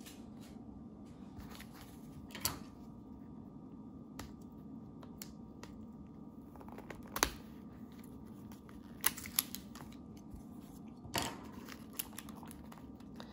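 Scattered small clicks and taps of a cardboard trading-card hanger box being worked open by hand, the sharpest about seven seconds in, over a faint steady hum.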